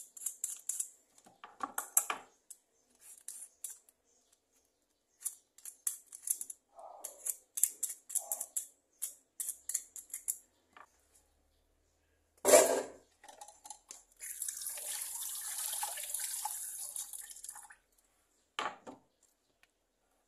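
Hand vegetable peeler scraping the skin off a piece of squash in quick, short strokes for about ten seconds. One loud knock follows, then a steady hiss of about three seconds and a single thump near the end.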